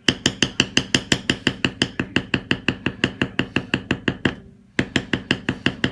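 Leather stamping tool struck over and over with a mallet, about five sharp blows a second, pausing briefly about four seconds in before starting again: background stamping while tooling a leather belt.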